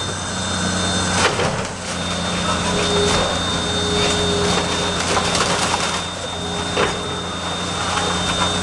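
House demolition by heavy machinery: a diesel engine running steadily under a continuous rough noise of breaking and shifting debris, with several sharp cracks and knocks of wood and building material giving way.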